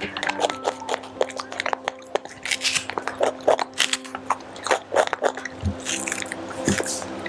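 A young monkey biting and chewing a raw okra pod close to the microphone: an irregular run of sharp crunchy bites and chewing clicks, with soft background music under it.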